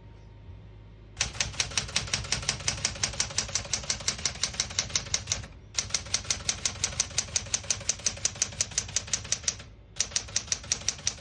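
Smith-Corona Galaxie Twelve manual portable typewriter being typed on: a fast, even run of key strikes, about seven a second, starting about a second in, with two short pauses.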